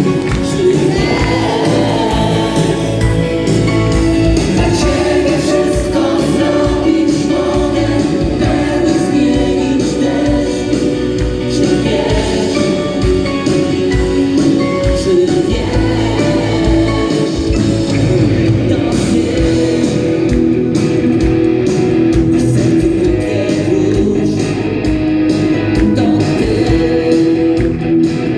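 Live band playing a song: singing with backing voices over electric guitars and keyboard, steady and loud throughout.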